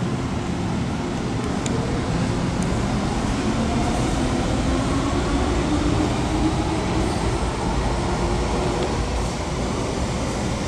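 Metro train running in an underground station behind platform screen doors: a steady rumble, with a motor whine of several tones that slowly climbs in pitch.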